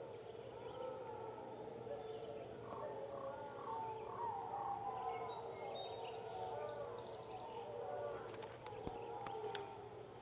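A pack of canids howling in chorus: several overlapping, wavering howls at once, with a few short sharp high clicks near the end.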